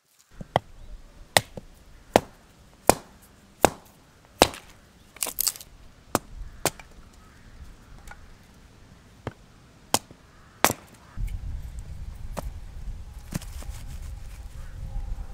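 Firewood being chopped into kindling: a dozen sharp blade-on-wood chops, about one every second at first, then more spaced out. From about eleven seconds in, a low rumbling noise takes over.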